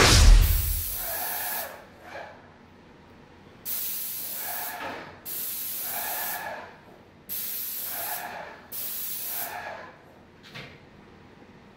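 Graco Magnum ProX17 airless paint sprayer spraying ceiling paint through a pole-mounted gun: five hissing bursts of about a second and a half each, each starting and stopping sharply with the trigger. A low thump right at the start is the loudest sound.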